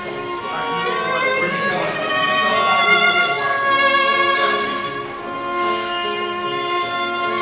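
Violin music: long held bowed notes, several sounding together, with a few slides from one note to the next.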